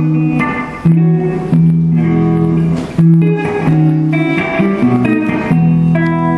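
Guitar played live on its own: chords struck roughly once a second, each ringing on, the last one held near the end.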